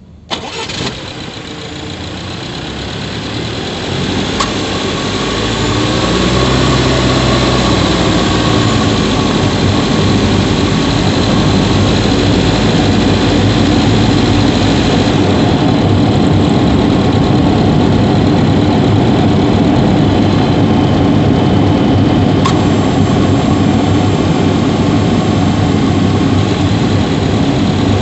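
Subaru Levorg 1.6GT-S's turbocharged flat-four engine starting and running, heard from inside the engine bay near the intake. The sound starts suddenly, builds over the first several seconds, then holds steady.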